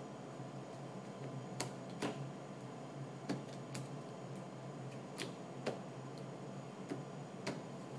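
Playing cards being dealt one at a time onto a cloth-covered table: sharp card snaps coming in pairs, about eight in all, over a low steady hum.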